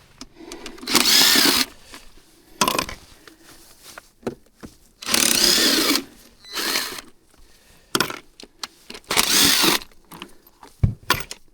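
Cordless drill-driver run in four short bursts, its motor whine rising and falling in pitch with each pull of the trigger, with small handling clicks in between.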